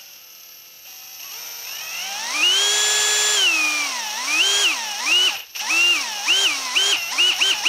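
Hilti SFE 2-A12 12 V cordless drill driver running free with no load. Its motor whine climbs slowly in pitch as the variable-speed trigger is squeezed, holds at full speed, then winds down. A series of quick trigger blips follows, each a short rise and fall in pitch, coming faster near the end.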